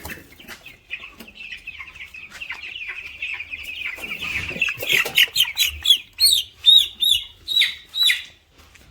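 Young broiler chicks peeping: a steady, high chorus, then from about five seconds in a run of loud, short, falling peeps about two a second. The flock is restless and hungry on a reduced feed ration.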